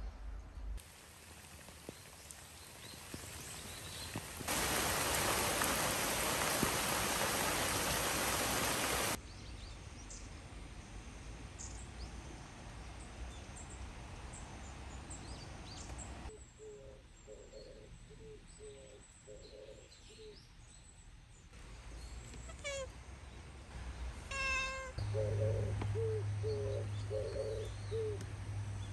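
A loud steady hiss for a few seconds. Later a tabby cat chattering at birds outside the window: two runs of quick short chirps, with a brief high call between them.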